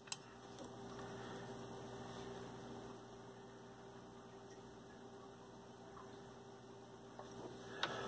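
Faint steady electrical hum with low room noise, and a small click or two.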